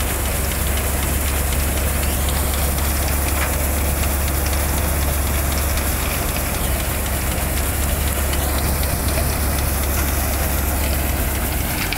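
Tractor-driven thresher running steadily while threshing black gram plants: a constant low engine drone under a dense, even rush of noise from the threshing drum and blower.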